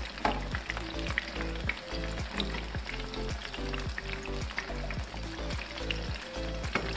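Golden-brown bread kebab patties deep-frying in hot oil in a pan, sizzling with scattered crackles, while a slotted metal spatula stirs and turns them.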